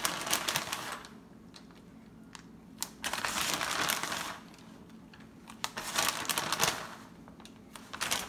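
Plastic bag of shredded cheddar cheese crinkling as it is shaken and squeezed. It comes in three bursts of about a second each: at the start, about three seconds in and about six seconds in.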